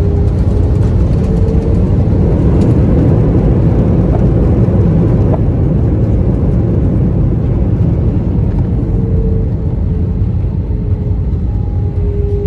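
Airbus A320 landing rollout heard from inside the cabin: a loud, steady roar of the engines and wheels rumbling on the runway as the jet slows with its ground spoilers up, easing a little about eight seconds in.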